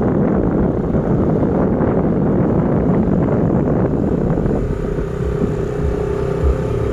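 Engines of a line of off-road jeeps running, a dense low rumble; a steady hum comes in about two-thirds of the way through.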